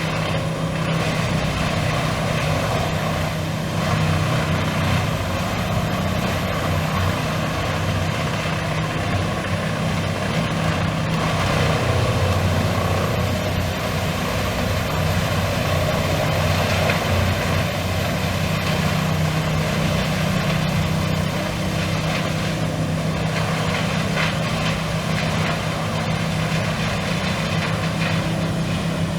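Industrial whole-tree shredder's diesel engine running steadily under load. A thin high whine rises about twelve seconds in and eases off toward the end.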